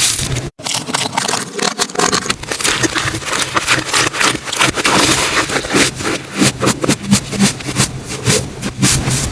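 Slime being squished and worked by hand: a dense run of crackling, popping clicks and sticky squelching, with a brief dropout about half a second in.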